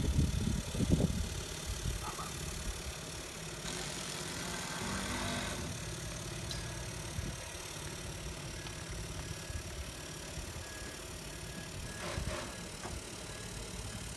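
An engine idling steadily, a low hum, with louder low rumbling in the first second.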